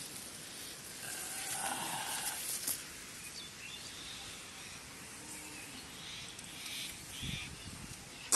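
Shallow muddy water sloshing and splashing as a hand grabs a fish, followed by the rustle of rice plants being pushed through, and a short sharp knock at the very end.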